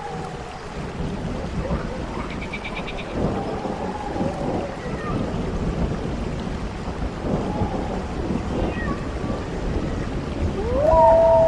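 Horror sound-effect ambience: a steady rumbling noise like thunder and rain, with low moaning glides drifting through it and a brief rapid ticking about two seconds in. Near the end a loud wailing tone rises, then slowly falls.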